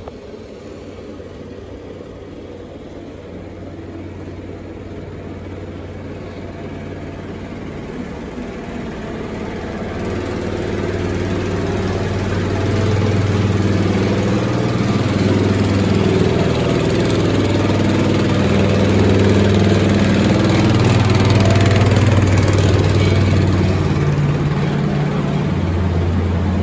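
Diesel engine of a miniature-railway E2 tank-engine locomotive running, getting steadily louder over the first half as the train comes in and passes close by.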